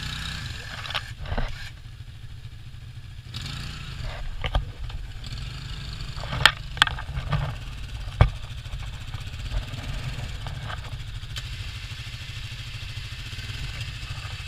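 ATV engine running steadily at low revs, with a few sharp knocks or clanks over it, the loudest a cluster of three between about six and eight seconds in.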